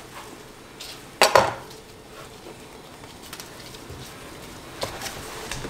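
A kitchen knife set down on a cutting board with a single sharp clack about a second in, then faint small handling ticks as tomatoes are pulled off the vine.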